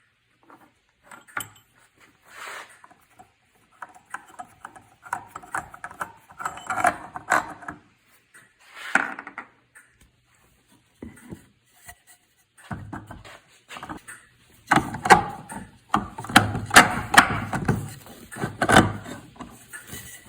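Irregular knocks, clicks and rattles of wooden baler parts and a bolt being handled and fitted together, busiest and loudest in the last few seconds.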